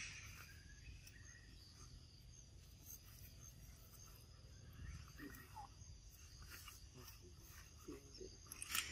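Faint outdoor ambience: insects chirring steadily at a high pitch over a low rumble, with a few brief soft sounds in the second half.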